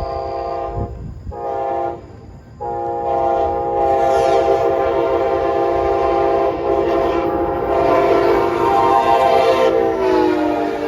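Amtrak Auto Train locomotive horn sounding loudly as the train passes at speed: a short blast, then one long held chord whose pitch drops just before it stops as the locomotive goes by. This is the end of the grade-crossing horn signal, with the train's rumble underneath.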